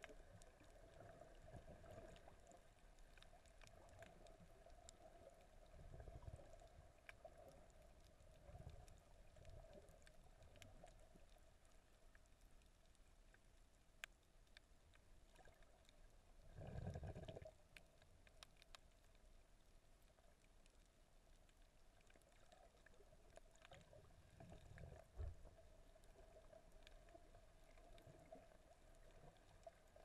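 Near silence: faint, muffled underwater sound recorded below the surface, with a faint steady hum, scattered faint clicks and a few low swells of moving water, the strongest about seventeen seconds in.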